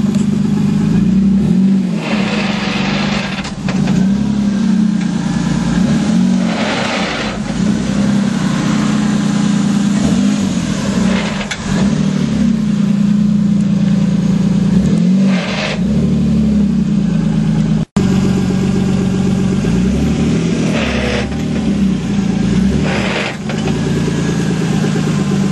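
Toyota Supra engine idling and being blipped about six times, each short rev bringing a brief rushing noise: the strange noise that appeared after a small launch at the track. The sound cuts out for an instant about two-thirds of the way through.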